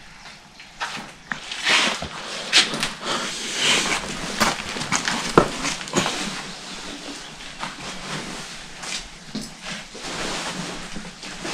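Footsteps crunching and scraping over rubble and broken tiles on a debris-strewn floor, in irregular clicks and scuffs.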